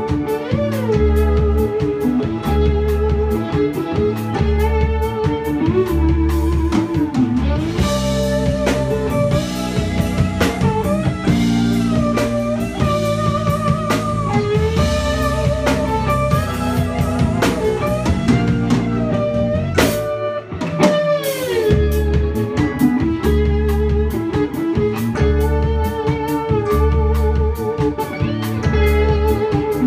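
Live band playing an instrumental blues-rock groove: electric guitar, bass guitar, keyboard and drum kit. A lead line with bent, wavering notes runs through the middle; about twenty seconds in the band hits an accent and drops out for a moment, then the beat picks up again.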